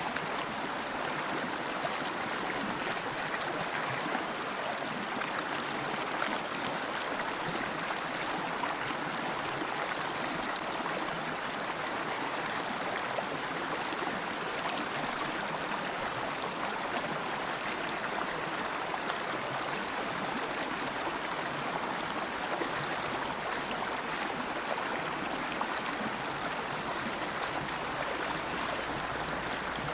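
River water flowing in a steady rush, with a faint gurgle and trickle in it.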